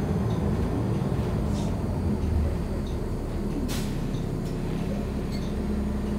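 City transit bus running, heard from inside: a steady engine and road rumble with a constant low hum, and a sharp click or rattle about two-thirds of the way through.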